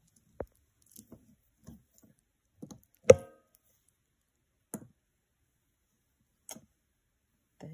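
Beads of a brass and lapis necklace clicking and tapping as it is picked up and handled over a cloth-covered table. There are scattered light ticks, and one louder knock about three seconds in that rings briefly.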